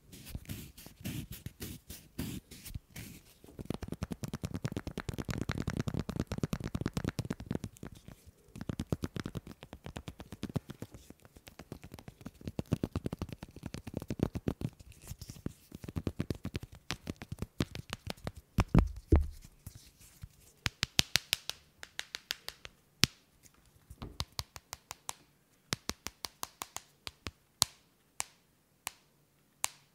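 Folded leather strip bent, squeezed and rubbed close to the microphone, giving dense crackling and creaking. Toward the end it turns to single sharp snaps and taps with short pauses between them.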